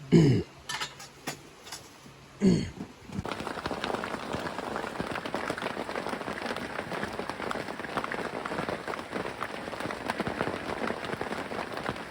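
Steady rain pattering, a dense hiss of many small drop ticks, starting abruptly about three seconds in. Before it come two short, loud sounds that fall in pitch.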